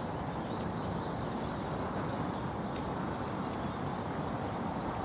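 Busy outdoor park ambience: a steady murmur of a crowd with small birds chirping in short, high calls above it.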